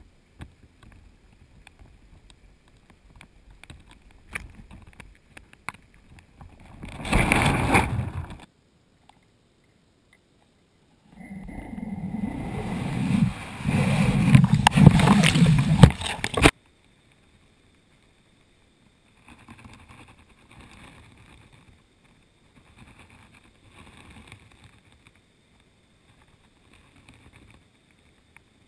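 Underwater camera housing being jostled and swept through the water: faint knocks and rustles, a short rush of water noise about seven seconds in, then a longer, louder rush and low rumble from about eleven seconds that cuts off abruptly.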